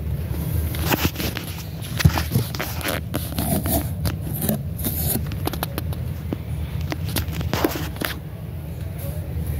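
Handling noise: irregular scraping, clicks and knocks as a hand and phone rub and bump against a cardboard box of diecast toy cars in plastic blister packs, over a steady low rumble. The sharpest knock comes about two seconds in.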